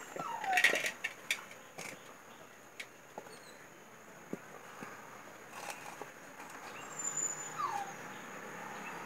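A dog whimpering: two short falling whines, one near the start and one near the end, over scattered soft clicks of hands mixing grated coconut and flour in a clay pot.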